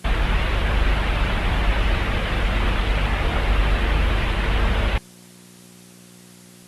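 A loud burst of static noise that starts abruptly and cuts off suddenly after about five seconds, leaving a faint low hum.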